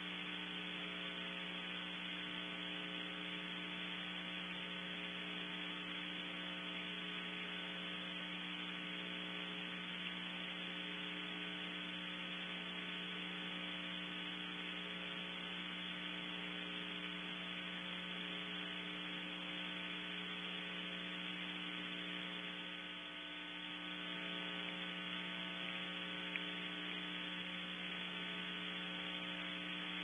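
Steady electrical mains hum with a buzzy stack of even overtones over a band of hiss, from the wildlife camera's audio line. Two faint ticks stand out, near a third of the way in and again near the end.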